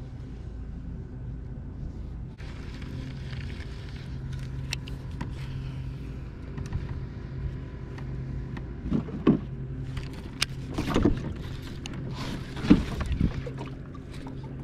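A steady low hum on a fishing kayak, with a few sharp knocks and heavier thumps against the kayak in the second half.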